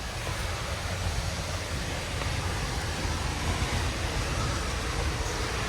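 A large waterfall's steady roar of falling water, an even rushing noise heavy in the low end.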